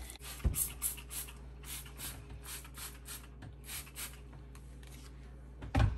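Hands working seasoning into raw meat: soft, wet rubbing and squishing strokes, a few a second, over a low steady hum, with one louder knock near the end.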